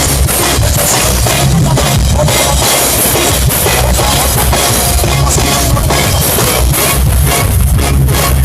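Live dancehall music, loud, with heavy bass and a drum kit keeping a steady beat.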